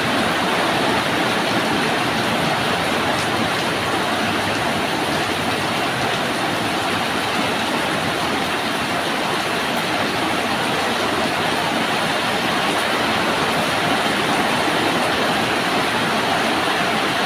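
Rain falling steadily, a dense, even hiss with no let-up.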